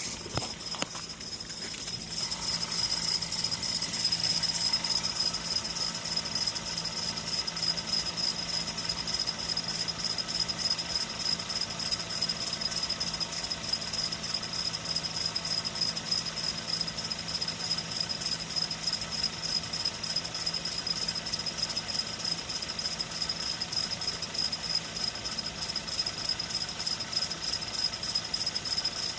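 VW Golf 6 1.4 TSI petrol engine idling after a cold start, with a fast, steady metallic rattling creak from the engine bay that the owner likens to a creaking chain. He hears it loudest near the front right wheel and suspects the timing chain or its tensioner.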